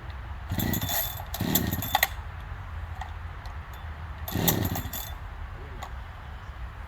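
Chainsaw being pull-started: three short pulls of the starter cord, the engine turning over briefly each time without catching.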